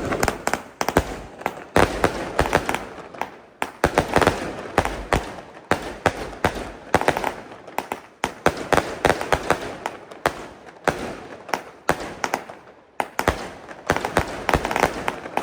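Consumer fireworks going off in rapid volleys of sharp crackling pops, with short lulls between the volleys.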